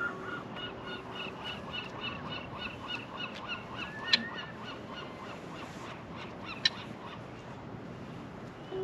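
Gull calling in a rapid, even series of repeated high notes, about four or five a second, with two sharp clicks about four and six and a half seconds in.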